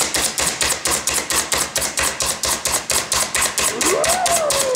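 Slap Chop plunger chopper pumped rapidly against a wooden board, its plastic plunger clacking down about six times a second as it chops meat.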